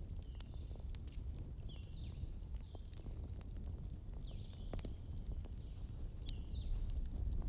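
Outdoor wood bonfire burning with a steady low rumble and scattered sharp crackles and pops. Birds call several times over it with short chirps, one longer call about four seconds in.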